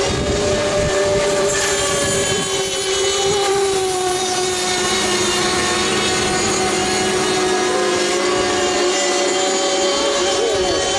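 Several FSR-O 7.5 cc two-stroke model racing boat engines running at high revs together. Their steady, high-pitched whines sit at slightly different pitches and rise and dip a little as the boats round the course.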